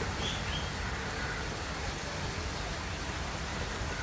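Steady rain falling on trees and rooftops: an even hiss with a low rumble underneath.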